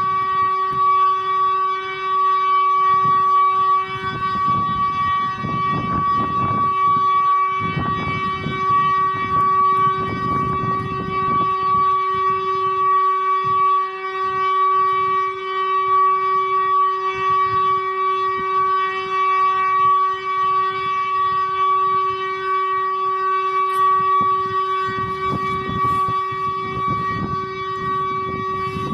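Civil defense siren sounding its test signal: one steady tone held at an unchanging pitch, without rising or falling. A low background rumble comes and goes underneath it.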